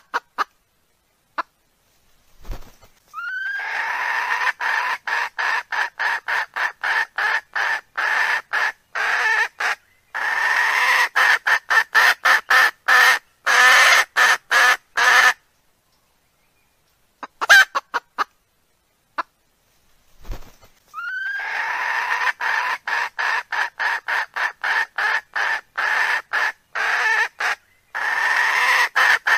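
Recorded hen call played as a lure for wild cocks: a short rising squawk, then a long run of rapid clucks at about three a second. The run breaks off, and after a few seconds of silence the same call starts over.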